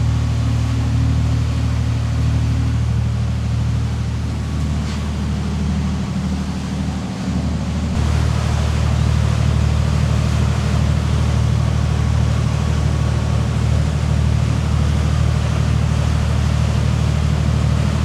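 A motor yacht's Volvo inboard diesel engines running steadily underway, a constant low drone under a rush of wind and water. The rush grows a little louder about halfway through.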